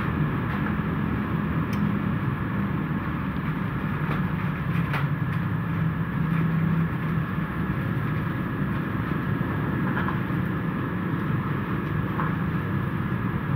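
Steady low mechanical hum over background noise, with a few faint clicks.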